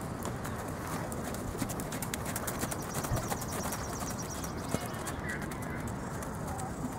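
Hoofbeats of a horse cantering on the dirt footing of a show ring: a quick run of soft clicks and thuds over a steady outdoor background.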